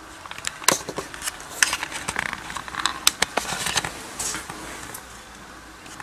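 Footsteps on gritty concrete stairs, a run of irregular crunching scuffs and clicks as shoes grind the loose debris on the steps, stopping about four seconds in.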